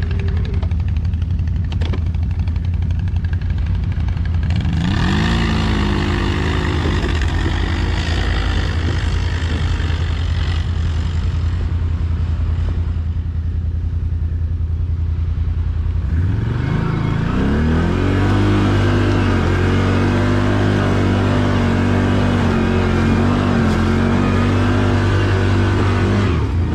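ATV engines: one idles with a steady low drone throughout. An engine revs up about four seconds in and holds high under load until about twelve seconds. It revs up again about sixteen seconds in and keeps pulling.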